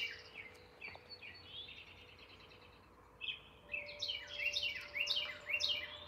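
Wild songbirds singing: a quick chattering run of chirps, then from about three seconds in a series of clear, downward-slurred whistled notes repeated several times.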